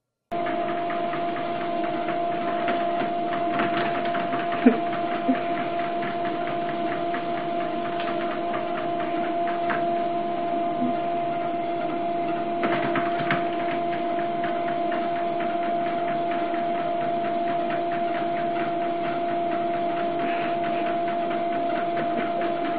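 Electric treadmill running, its motor and belt giving a steady hum, with a couple of short knocks about five seconds in.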